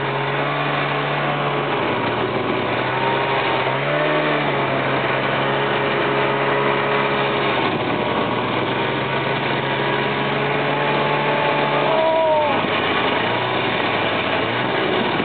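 Snowmobile engine running under way, its pitch rising and falling with the throttle, with a dip and change about twelve seconds in.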